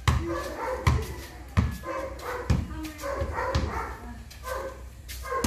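Basketball dribbled on concrete, a sharp bounce about once a second. Between the bounces runs a pitched sound that rises and falls, like an animal's voice.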